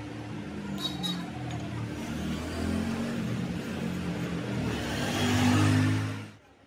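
A motor engine running with a steady low hum, growing louder, then stopping abruptly near the end. Two light metallic clinks about a second in.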